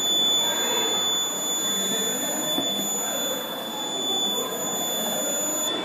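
Piezo buzzer of an FPGA-based alarm clock sounding one steady, high-pitched alarm tone that cuts off suddenly near the end. The cut-off is the clock stopping its alarm on its own once the weight sensor reads the glass as empty of water.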